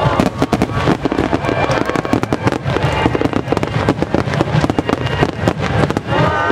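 A dense fireworks barrage: many aerial shells and ground-fired starmine volleys bursting in quick, overlapping bangs and crackles without a break, with music playing underneath.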